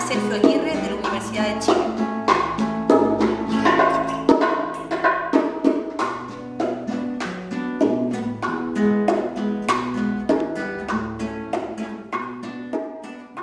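Music: acoustic guitar played with a steady rhythm over hand percussion, getting gradually quieter toward the end.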